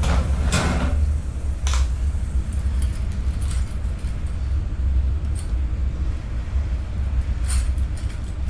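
Loose metal Allen wrenches clinking a few times as they are sorted and tried on a bolt, over a steady low rumble.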